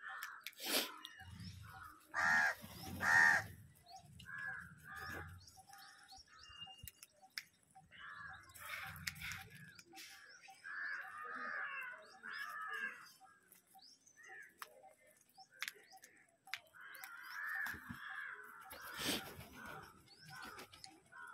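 House crows cawing repeatedly, several birds calling over one another, with the loudest caws about two to three seconds in, along with a few sharp clicks.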